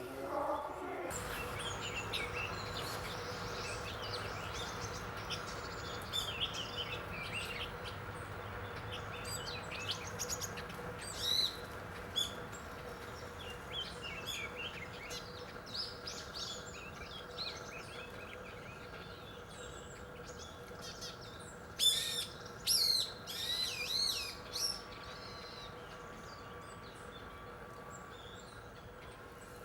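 Small songbirds calling with many short, high chirps, coming thickest in a run about two-thirds of the way through, over a faint steady hum.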